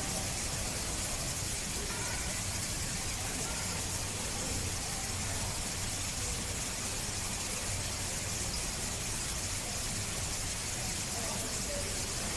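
Steady background hiss and low hum with faint, indistinct murmuring voices; no distinct sound stands out.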